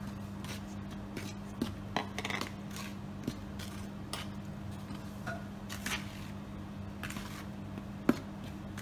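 Metal spoon stirring sugar through flour in a plastic mixing bowl: irregular scrapes and light taps against the bowl, the sharpest one near the end, over a steady low hum.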